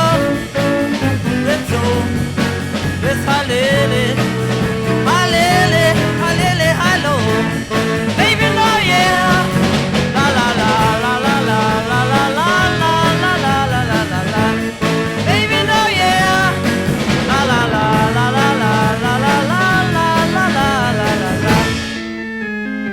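Instrumental passage by a 1960s beat band: drums, bass guitar and a bending lead melody line over them. Shortly before the end the full band stops and an organ carries on quietly alone.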